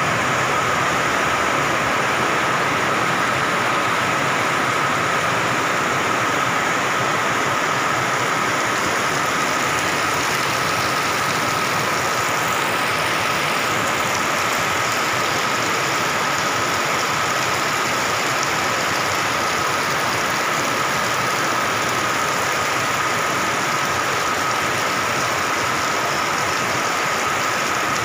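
Heavy tropical rain pouring down steadily, a dense even wash of noise, with a thin steady high tone running underneath.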